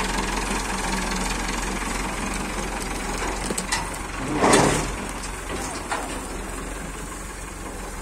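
Massey Ferguson tractor's diesel engine running steadily at idle, with a few light clicks and one brief louder rush of noise about halfway through.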